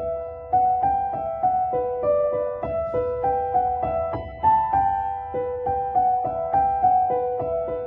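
Background music: a slow piano melody of sustained, repeating notes.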